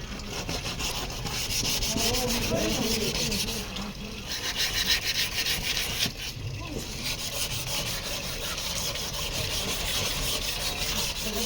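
Sandpaper rubbed by hand over car bodywork in quick back-and-forth strokes, pausing briefly twice.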